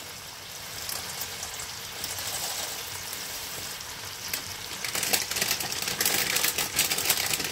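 Chicken thigh frying in sesame oil in a frying pan: a steady sizzle with fine spitting crackles that grows busier about five seconds in.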